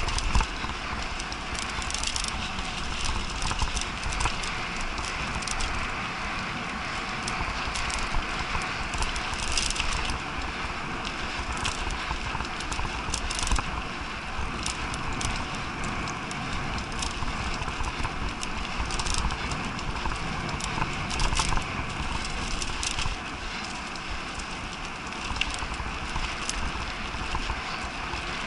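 Mountain bike riding fast over a dirt forest trail: steady tyre noise and low rumble, with frequent rattles and knocks as it goes over bumps.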